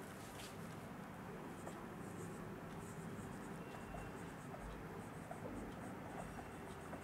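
Whiteboard marker writing on a whiteboard: faint, short scratching strokes.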